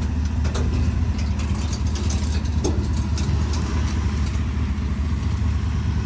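Pickup truck engine idling with a steady low drone, with a few light clicks over it.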